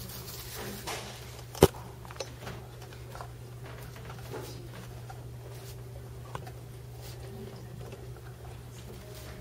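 Room tone with a low, steady hum, broken by one sharp knock about a second and a half in and a few faint taps after it.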